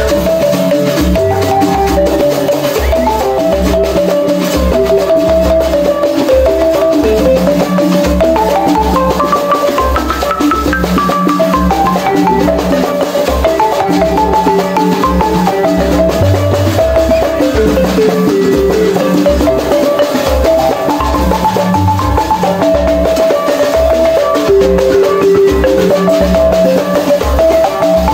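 Senufo balafon, a wooden-keyed xylophone with gourd resonators, played fast with mallets. A repeating, rippling melody runs over a steady low pulse.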